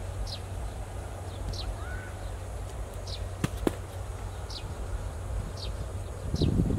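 A bird repeats a short, high, falling chirp about once a second over a low, steady outdoor rumble. About three and a half seconds in, a thrown rock lands on the stony bank with two sharp clacks. Near the end, water splashes as stones are pulled from the shallow canal.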